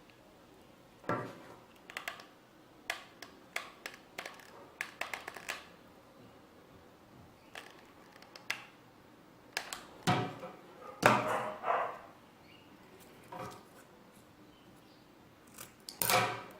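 Scissors snipping and small clicks of craft handling at a table, with a dog barking a few short times: once about a second in, three times in a row about two thirds through, and once near the end.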